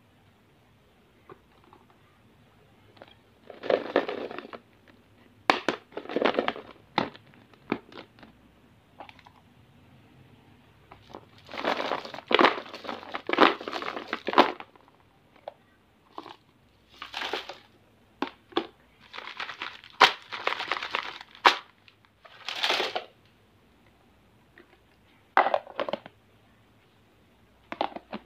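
Plastic-wrapped candies crinkling and rattling in bursts of a second or two as they are handled and tipped into a plastic toy dump truck, with sharp single clicks of plastic lunch boxes being handled in between.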